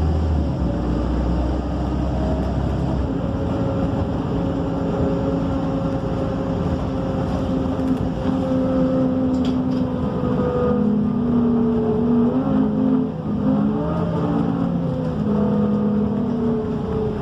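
MAN Lion's City A37 bus engine and drivetrain running while the bus drives, heard from inside the bus. A low drone stops about three seconds in, and from about ten seconds in the engine tone rises and falls as the bus changes speed.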